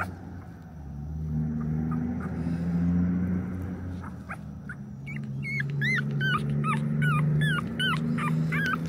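One-week-old pocket American Bully puppy crying, starting about four seconds in: a rapid run of short, high squeaks, roughly three a second, each rising and falling in pitch.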